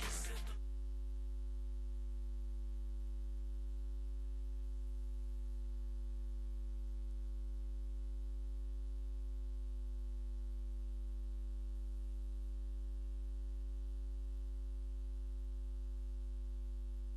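Steady low electrical hum with no other sound; the music and voices cut off about half a second in.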